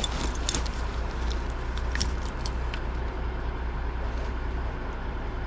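Steady low engine rumble, with scattered light clicks and rustles over it.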